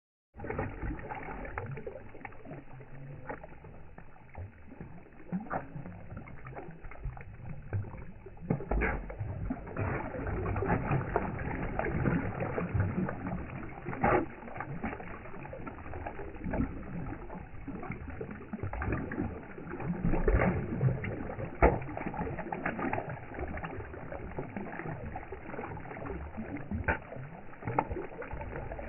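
Fish splashing and thrashing at the surface of a pond, a continuous wash of water with many irregular slaps and a few louder splashes.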